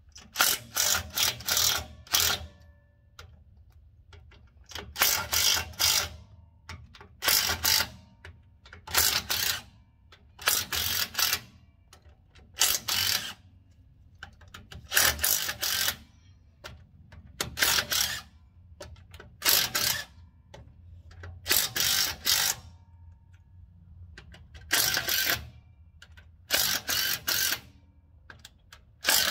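Cordless impact wrench hammering in about a dozen short bursts, one every two seconds or so, backing out the steel bolts of a truck's rear differential cover.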